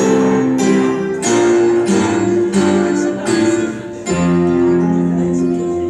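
Instrumental music with plucked, guitar-like chords: a regular beat for the first four seconds, then held chords.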